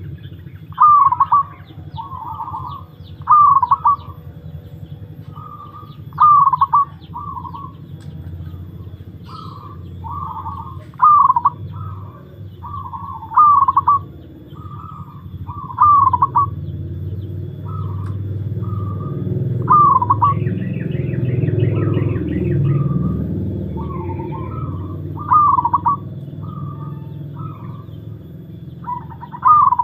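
Zebra dove (perkutut) cooing: short, clear phrases of a few quick notes, repeated roughly every two seconds. A low rumble in the background grows louder around the middle, and a brief high chirping is heard about twenty seconds in.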